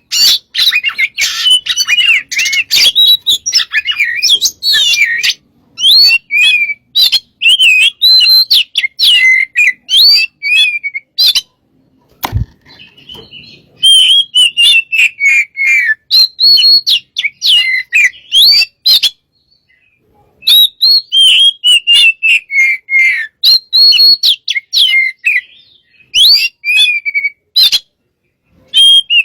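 Oriental magpie-robin (kacer) singing loudly and without letup: a fast, varied string of whistled, warbling phrases in long runs broken by short pauses. A single knock sounds about twelve seconds in.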